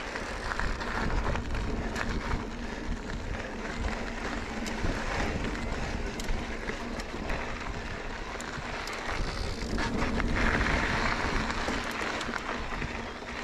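Mountain bike riding on a dirt and gravel trail: tyres rolling over the ground, wind rushing over the microphone and scattered clicks and rattles from the bike. The noise swells about ten seconds in.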